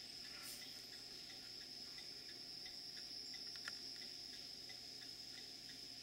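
Faint, steady high-pitched chorus of insects trilling without a break, with soft regular ticks and one sharper click a little past halfway.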